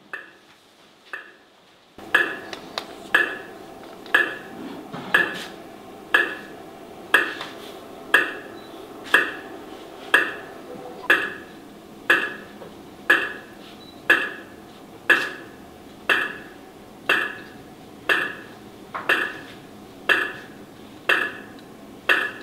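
A metronome ticking steadily about once a second over a faint sustained drone, marking a minute of silence for the fallen. The first two ticks are faint, and the steady drone comes in about two seconds in.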